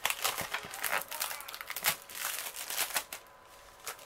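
Clear cellophane wrap crinkling and crackling as it is peeled and unrolled off a rolled canvas. The crackles are dense and irregular and die down about three seconds in.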